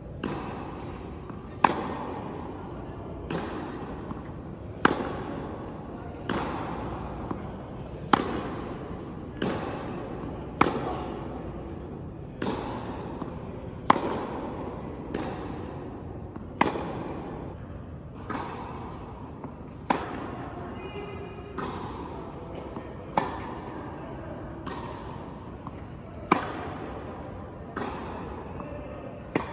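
Tennis balls struck by a racket over and over, one hit about every second and a half, each echoing in a large indoor tennis hall, with fainter knocks between the hits.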